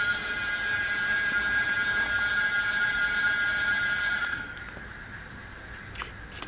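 Brushless geared electric-bike hub motor spinning its unloaded wheel at about top speed, a steady high whine that cuts out about four seconds in as the power is released and the wheel coasts down.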